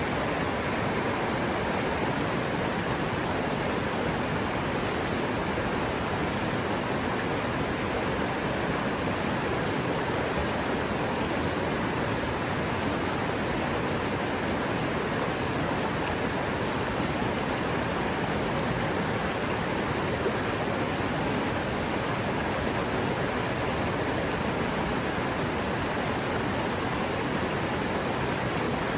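River water rushing steadily over rocks, an even, unbroken noise.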